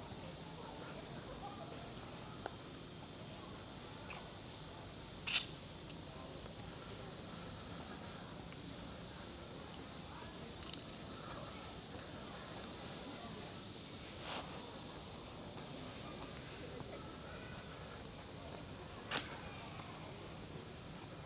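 A steady, high-pitched chorus of insects in the trees, rising slightly in level about two-thirds of the way through, with a few faint ticks.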